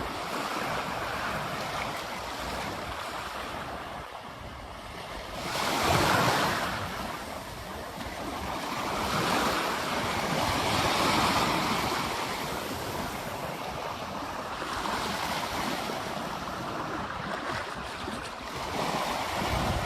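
Ocean waves breaking on a beach: a steady wash of surf that swells and ebbs with each wave, the loudest wave breaking about six seconds in.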